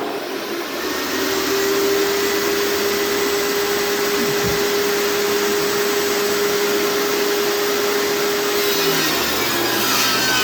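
Table saw running and cutting a piece of 1x board, a loud steady machine noise. A steady whine rides on it and drops away near the end.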